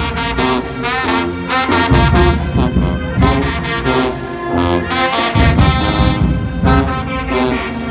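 A marching band's brass section and drumline playing live: horns in full chords over heavy, steady drum hits.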